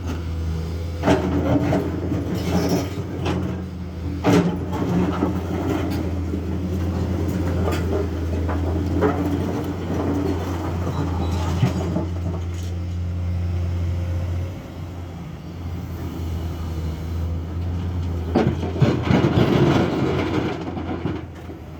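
Komatsu excavator's diesel engine running steadily, easing off briefly about two-thirds through, with irregular metallic clanks and knocks from the machine working and a longer rattling stretch near the end.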